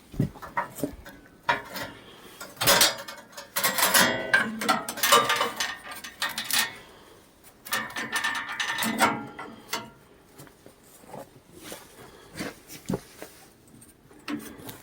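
Irregular metallic clanking and ratcheting as sawmill gear is worked by hand, in several bursts with short pauses between.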